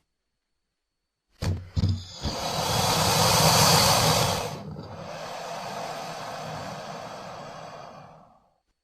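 Parasuchus creature sound effect: after a silent pause and two short sharp sounds, a long breathy hiss that is loudest early on, then eases off and fades out.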